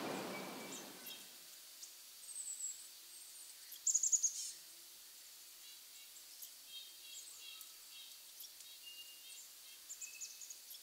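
Faint, high-pitched songbird chirps scattered over quiet forest ambience, with a brief louder trill about four seconds in.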